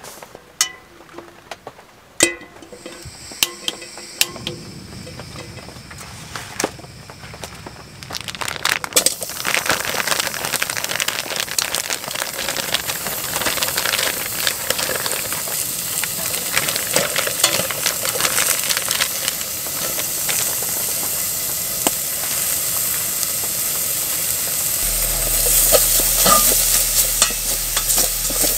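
Minced meat frying in a pot, sizzling steadily while it is stirred and scraped with a wooden spatula. Before that, a few light clicks and knocks of handling, with the sizzle starting about nine seconds in.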